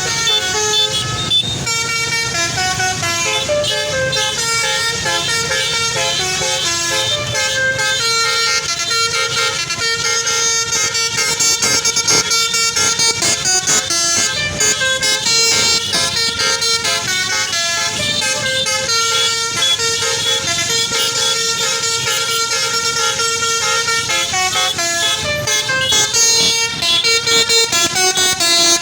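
A bus's basuri melodic horn playing a tune note after note, over the low rumble of the vehicle.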